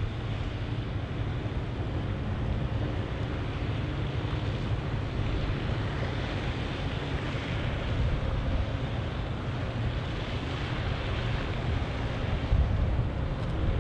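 Wind buffeting the microphone and water washing along the hull of a passing oil tanker, with a faint steady machinery hum. The wind gusts grow stronger near the end.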